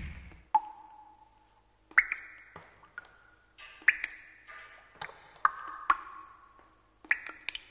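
Drip and ping sound effects: about a dozen sharp plinks at irregular intervals, each ringing briefly at its own pitch before fading.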